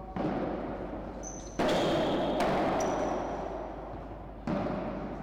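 Padel rally: the ball struck by rackets and bouncing off the court and walls, four sharp hits over about five seconds, each ringing on in the echoing indoor court. Two short high squeaks come between the hits.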